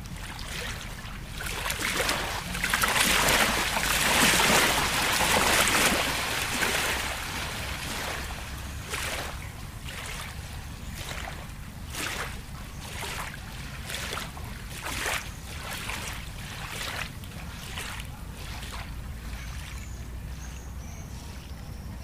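Lake water: a rush of water swells for a few seconds, then gives way to small laps or splashes every second or two over a low, steady rumble.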